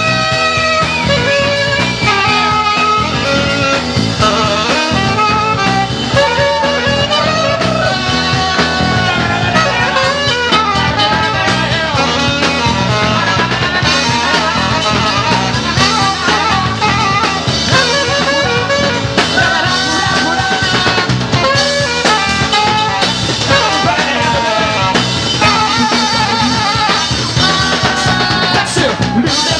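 Live band playing an instrumental break: saxophone melody lines over guitar and drum kit, with no singing.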